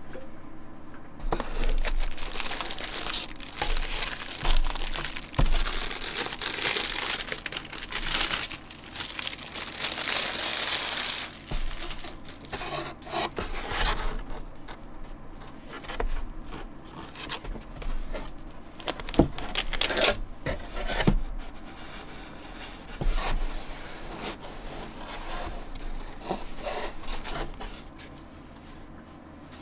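Clear plastic wrap being torn and crinkled off a drawing tablet, a dense crackling for about ten seconds. It is followed by softer rustling, rubbing and a few light knocks as the felt-sleeved tablet is handled and lifted out of its cardboard box.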